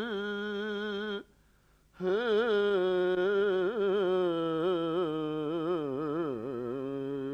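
Unaccompanied wordless male vocal line of a naat, hummed with a wavering, ornamented melody. A held note stops about a second in, and after a short pause a long melismatic phrase begins.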